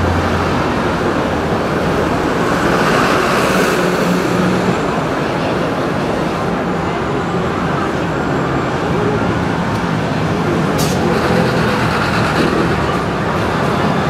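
Steady city street traffic, with cars and trucks driving past.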